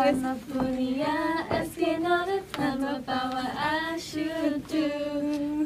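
A young woman's voice singing a tune with no instrument behind it, a string of held notes that step up and down in pitch.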